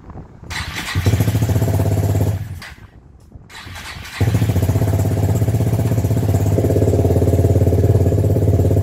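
Hyosung GD250N parallel-twin engine being cranked on its first start after a rebuild. It catches for about a second and dies, is cranked again, and catches about four seconds in, then keeps running steadily.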